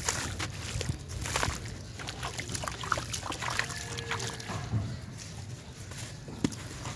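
Dry sand-cement chunks crumbling between hands and pouring as grit into a tub of water, with a dense run of gritty crackles, trickling and sloshing of wet slurry.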